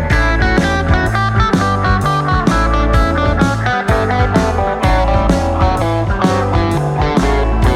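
Background music with electric guitar over a steady beat.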